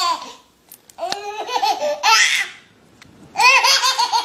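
Baby laughing hard in repeated short, high-pitched bursts, with a brief pause before another bout near the end.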